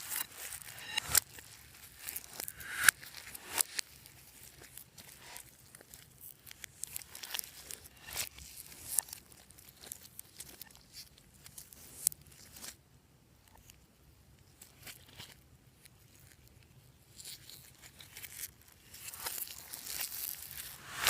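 Hands kneading and stretching fluffy slime: irregular sticky crackles and small pops, with a short lull a little past halfway.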